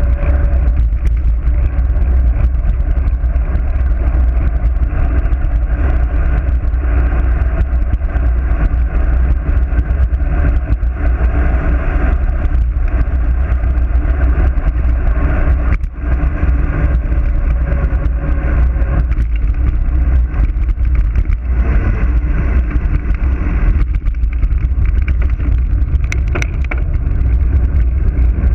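Loud, steady wind rush buffeting an action camera's microphone as a road bike descends at speed.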